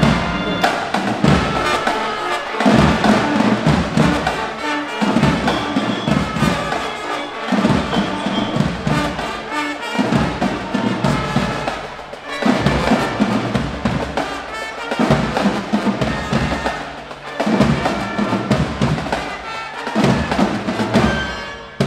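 A high school marching band playing: trumpets, a sousaphone and clarinets over snare and bass drums, loud throughout.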